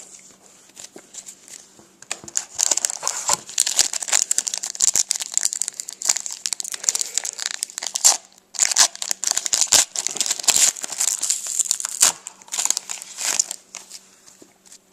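Foil wrapper of a hockey card pack being crinkled and torn open by hand, a dense irregular crackling that runs for about eleven seconds with a brief pause in the middle.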